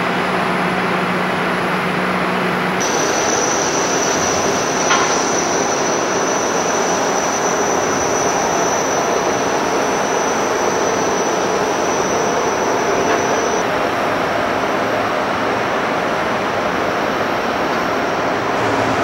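Airbus A330 jet noise on the apron: a steady roar with a high whine that comes in about three seconds in and stops about two-thirds of the way through.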